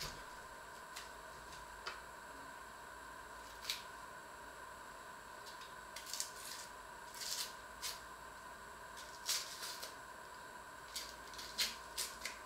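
Dry onion skin crackling and rustling as it is peeled off with a small knife, in short, irregular crackles that come thicker in the second half, over a faint steady whine.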